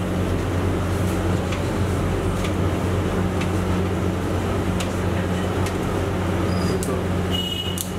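Steady drone of commercial kitchen machinery, the exhaust hood fan and the burner under a large stockpot, with a constant low hum. A few faint ticks are heard over it.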